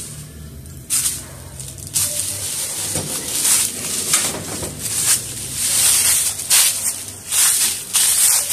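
Footsteps crunching and rustling through a thick layer of dry fallen leaves, a scuffing step about once or twice a second.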